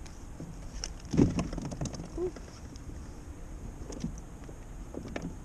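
A few knocks and rattles of gear being handled aboard a fishing kayak, the loudest about a second in, over steady low wind and water noise.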